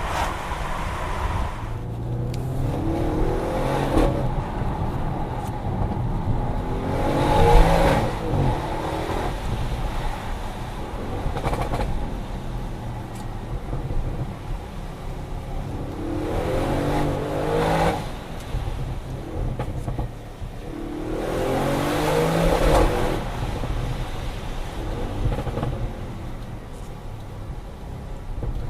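Audi RS6 C7 Performance's 4.0-litre twin-turbo V8 accelerating hard in four bursts, the engine note rising through each pull and falling away, with steadier running between.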